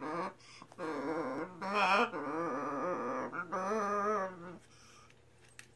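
Scarlet macaw singing: a run of drawn-out, wavering notes with short breaks between them, which stop about a second before the end.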